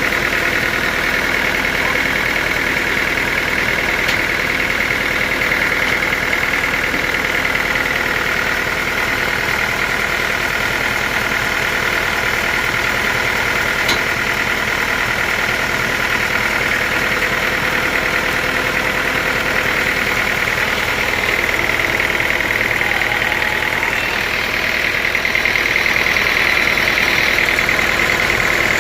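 Sawmill machinery running steadily: a motor's hum with a high, steady whine over it, a little louder near the end.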